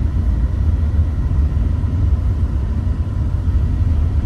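Loud, steady low rumble of a vehicle on the move.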